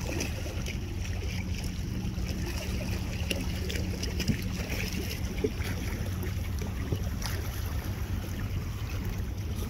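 Outdoor ambience on open water: wind on the microphone and water lapping around a floating kayak, over a steady low hum, with scattered small ticks and splashes.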